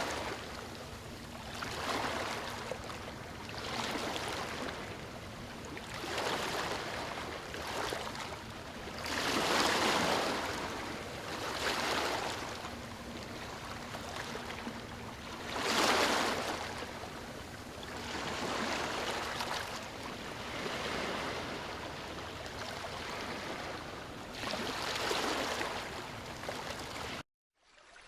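Small waves washing in, a swell of rushing water about every two seconds over a steady wash. It cuts off abruptly near the end.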